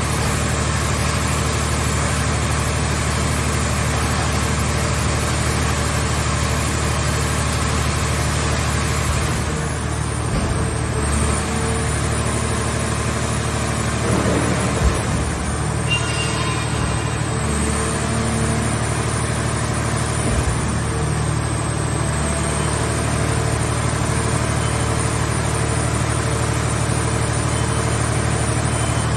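Hydraulic car baler's power unit running steadily with a constant low hum, with a couple of short thumps in the middle.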